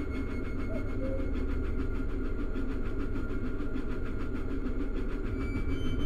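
Miniature railway engine running steadily: a continuous low rumble with a fast flutter, growing a little louder near the end.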